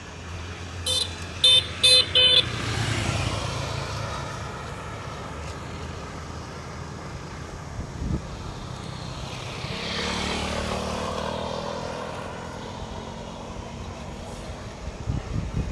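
Four short high-pitched vehicle horn toots about a second in, followed by road traffic: one vehicle passes just after the toots, and another passes around the middle with its pitch falling as it goes by. A few low knocks come near the end.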